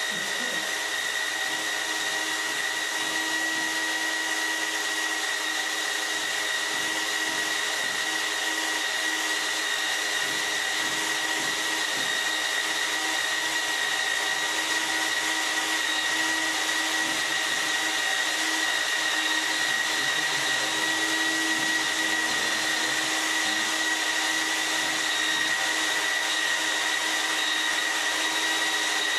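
FE magnetic drill's motor running steadily while its annular cutter bores through steel plate, a constant whine with a lower hum.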